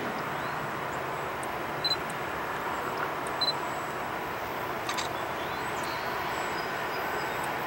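Steady far-off rumble of a freight train approaching down the line, with two short high chirps about a second and a half apart.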